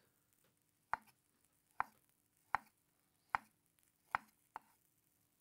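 Chef's knife cutting through beetroot and knocking on a wooden cutting board: six slow, separate chops, about one every second.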